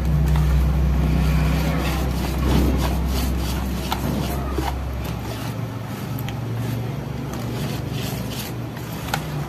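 Wire whisk beating thick glutinous rice flour batter in a stainless steel bowl: quick repeated scrapes and ticks of the wires against the metal. Under it a low motor-like hum that drops away about halfway through.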